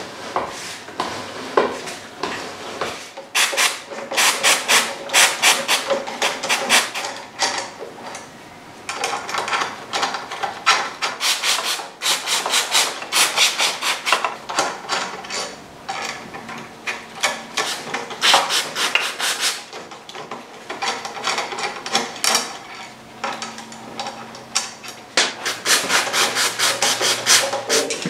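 Socket wrench turning a nut and bolt through the bobbins of a Suzuki GSX1400's floating front brake disc, making rasping clicks in repeated bursts with short pauses. The bobbins are clogged with brake dust, which makes them creak as they turn instead of rotating silently.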